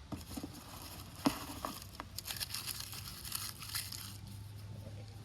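Crinkly rustling and crackling of dry material, thick with small clicks, with one sharp snap a little over a second in; it dies down after about four seconds.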